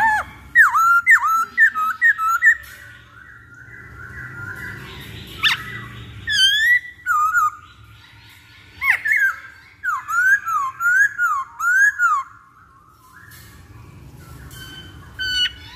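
Black-throated laughingthrush (poksay hongkong) singing loud, clear whistled phrases of swooping down-and-up notes, repeated quickly in three bouts.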